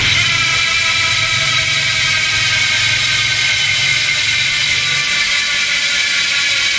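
Sagmit M120 bicycle rear hub freewheeling, its six pawls clicking over the ratchet so fast they blur into a steady, loud buzz. The owner calls the sound rattly now, no longer fine. A low hum runs underneath and stops about five seconds in.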